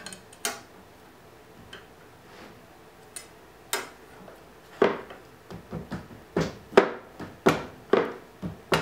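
Sharp taps and knocks of hands, ruler and wood against a table saw's metal rip fence and table as the fence is nudged into position, a few scattered at first, then coming about two a second.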